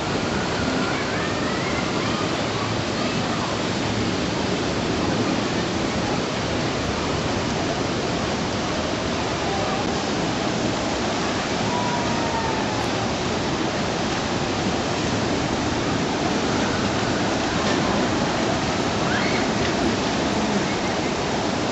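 Steady rushing noise, even and unbroken, with a few faint distant voices or shouts over it.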